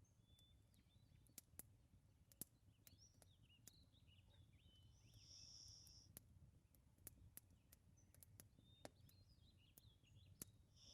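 Near silence: scattered faint sharp crackles from a wood fire in a fireplace, with faint high bird chirps over a low steady rumble.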